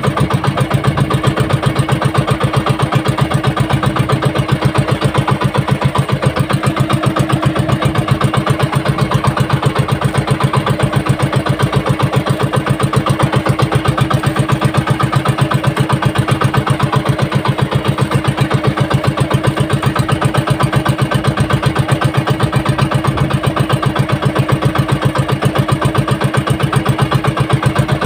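Fishing boat's small inboard engine running steadily at low speed, with a fast, even chugging pulse.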